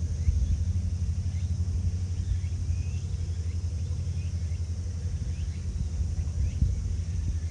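Strong wind buffeting the microphone as a steady low rumble, with faint short chirps repeating in the background.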